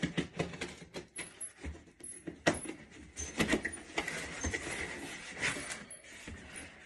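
Cardboard shipping box being opened by hand: flaps rustling and scraping, with irregular knocks and crinkles of cardboard.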